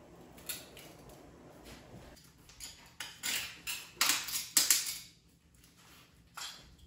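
Hard objects clinking and scraping in short, uneven clatters. They are sparse at first and thickest and loudest a little past the middle.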